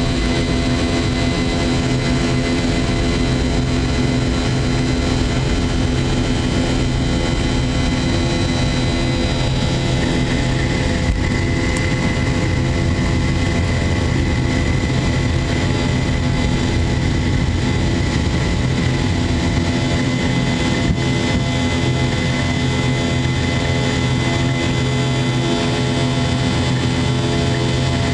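A Boeing 717's rear-mounted Rolls-Royce BR715 turbofan at takeoff thrust, heard from inside the cabin right beside the engine: a steady loud roar with a held high whine. A heavy low rumble from the takeoff roll eases about two-thirds of the way through, as the wheels leave the runway and the jet climbs out.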